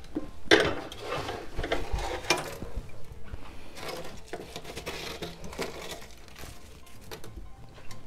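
Snow-like chunks of half-thawed ice and frost being scraped and pulled by hand out of a vintage Sears Coldspot refrigerator's freezer compartment: irregular crunching and scraping with light knocks and clinks, a sharper knock about half a second in.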